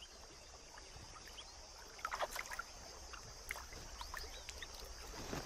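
Faint water sloshing and splashing as elephants wade and drink, over a steady high hiss with scattered short chirps.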